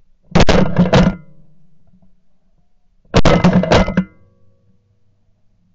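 Two close bursts of shotgun fire about three seconds apart, each several blasts in quick succession from two shotguns.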